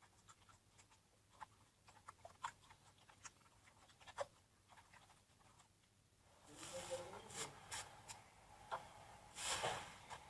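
Slime being handled: a scatter of small, quiet sticky clicks and pops, then from about six seconds in louder, denser squishing and rubbing.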